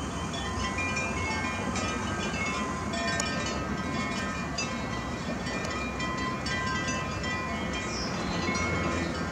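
Steady outdoor background noise: a constant low rumble with many short, high-pitched tones scattered through it.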